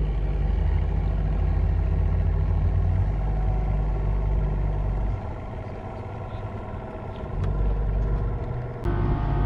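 Bass boat's outboard motor running on the lake, a steady low engine drone with rushing wind and water noise. The low engine note weakens for a couple of seconds about halfway through, then changes abruptly near the end.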